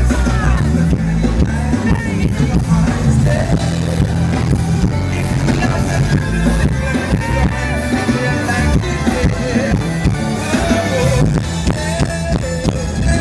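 Live band music from a concert stage, with a heavy bass and a steady drum beat, and a voice singing or calling over it at times.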